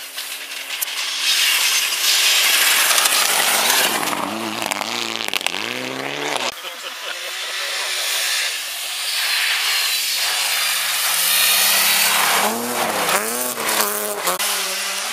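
Two passes of a rally car being driven hard through a bend on a snowy road. The engine revs rise and fall as the driver works the throttle and changes gear, over a hiss of tyres throwing snow and gravel. The first pass breaks off suddenly about six and a half seconds in, and the second pass comes from a BMW 3 Series E36 rally car.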